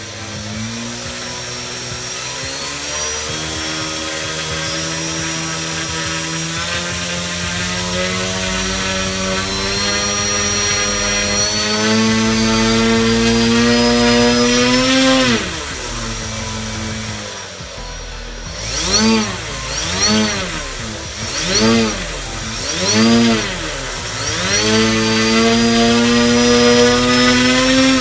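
Brushless outrunner motor spinning a two-blade propeller under radio throttle control. Its whine climbs slowly in pitch as the throttle is eased up, then drops away about halfway through. It then rises and falls sharply in four or five quick revs before climbing again near the end.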